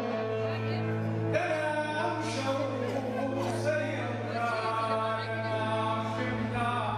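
A man singing long, gliding notes into a microphone through a PA system, with live keyboard accompaniment and a steady low hum underneath.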